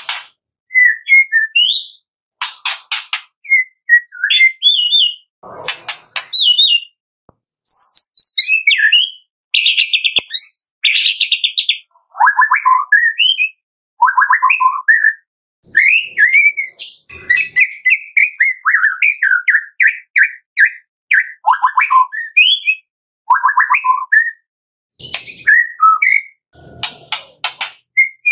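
White-rumped shama singing a varied song of short whistled phrases and rapid trills, broken by harsh, rattling crackle calls near the start and again near the end.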